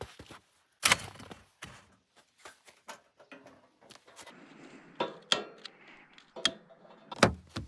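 Camp gear being set up: a folding table's metal legs knocking and clicking into place, then a propane camp stove set down on it and opened. A string of sharp knocks and clicks, the loudest about a second in and near the end.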